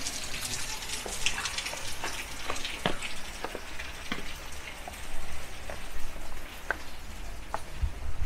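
Water running and splashing, with irregular drips and plinks over a steady hiss.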